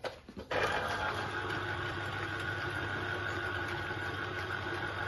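Electric citrus juicer running, its motor turning the reamer with a steady hum as a lemon half is pressed down onto it. The motor starts about half a second in.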